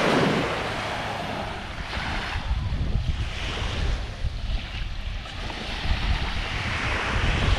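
Surf washing in on a beach, swelling and ebbing several times, with wind rumbling on the microphone.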